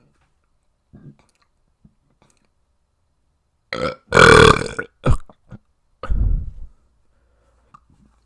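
A person burping: one long, loud burp about four seconds in, two short ones right after, then another burp that sits lower.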